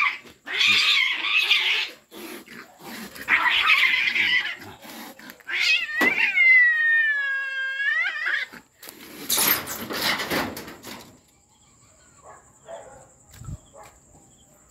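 Domestic cats fighting: harsh screeching yowls in bursts. About six seconds in comes one long drawn-out yowl whose pitch sinks and then rises again, and about nine seconds in another harsh burst.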